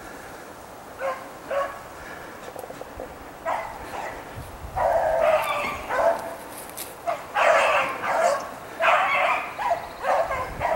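Rabbit beagles baying: a few short cries at first, then near-continuous, louder baying from about five seconds in, the sound of hounds giving tongue on a rabbit's track.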